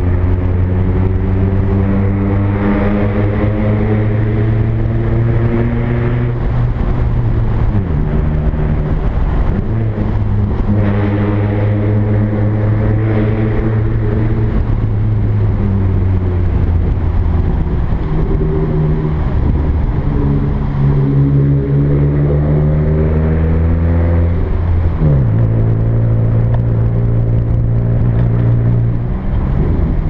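Car engine and exhaust running under way, a steady engine note whose revs sag slowly and then jump back up in pitch several times.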